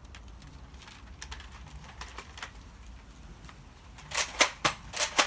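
A quick run of sharp plastic clicks and knocks, about five or six in just over a second, near the end, from a toy NERF blaster being handled and readied. A few faint ticks come before it.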